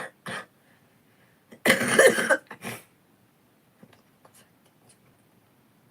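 A person's chest cough: one loud cough about two seconds in, with a shorter one right after it.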